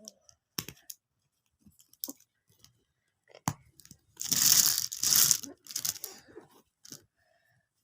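Hands working craft material while building a toy car: a few sharp clicks, then a loud, noisy rasp lasting about a second and a half around four seconds in, followed by smaller handling noises.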